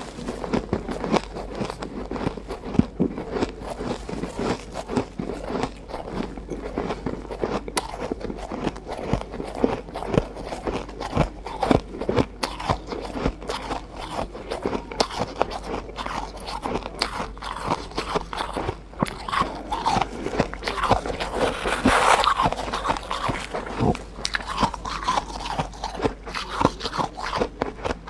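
Close-up crunching of ice being bitten and chewed, a dense run of irregular crackles and crunches.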